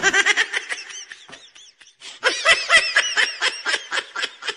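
High-pitched giggling laughter in quick repeated pulses. One run fades out within the first two seconds, then a louder run starts just after.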